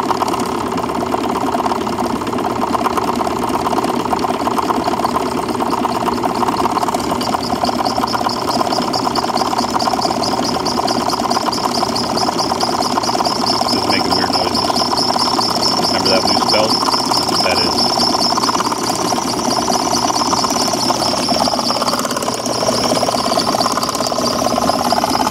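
Freshly rebuilt electric piston water pump running steadily while it primes, not yet drawing water. A thin high whine joins about seven seconds in.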